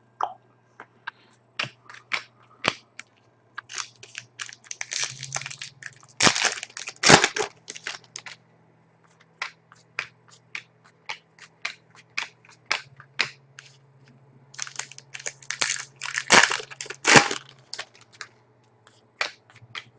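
Trading cards being handled: sharp clicks and snaps as cards are flipped through one by one, with two stretches of crackling and crinkling, about five seconds in and again about fifteen seconds in, as foil pack wrappers are torn open.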